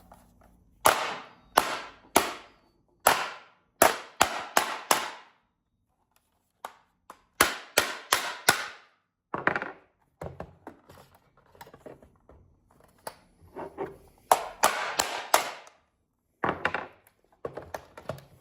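Plastic case of a GE Simon XT security and fire alarm panel being smashed open: sharp blows in quick runs of four or five, with pauses and lighter knocks between.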